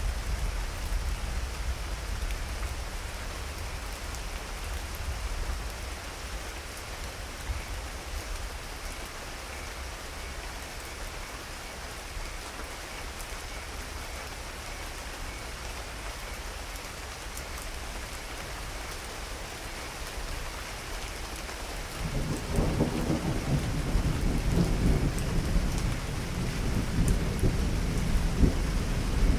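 Steady rain with thunder: a low rumble dies away at the start, then a new roll of thunder begins rumbling about three-quarters of the way through and grows louder.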